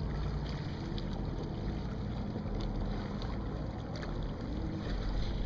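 Steady low rumble of a fishing boat on open lake water, with faint engine tones that drift slowly in pitch.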